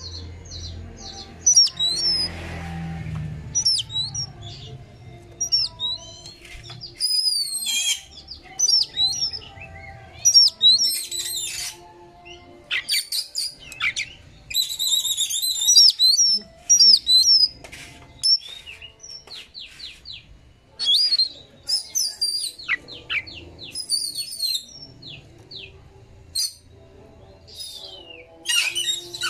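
Oriental magpie-robin singing: a fast, varied run of sharp whistled notes, quick up-and-down sweeps and harsh chattering rattles, delivered in short bursts with brief gaps between them.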